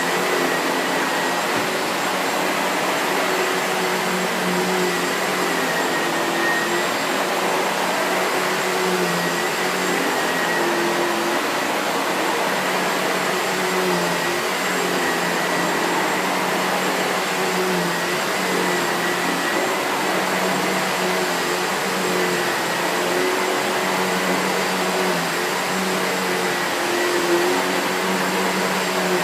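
2013 SEBO Felix Rosso bagged upright vacuum cleaner running, its suction motor and brush-roll motor both on. It makes a steady whine over a lower hum that wavers slightly now and then.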